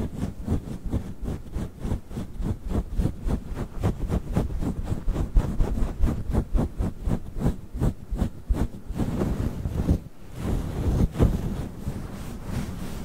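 Fluffy microphone windscreen being rubbed and scratched right on the mic, in quick strokes several a second. There is a short break about ten seconds in.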